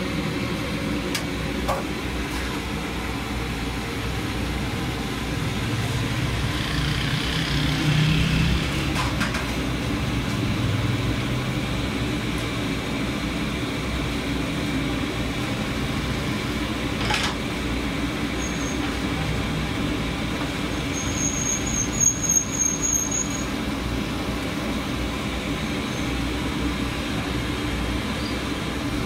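Steady street-stall background noise, a low rumbling drone like nearby traffic or a burner, with a few sharp clicks and a brief high chirping tone about three quarters of the way through.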